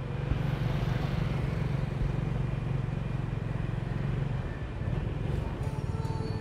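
Motorbike engine running steadily at riding speed in city traffic, with a continuous road noise.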